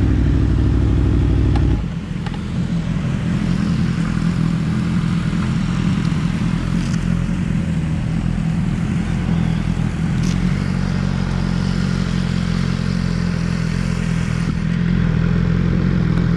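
Motorcycle engine running at low speed. About two seconds in the loud low rumble drops away and the engine settles to a steady note.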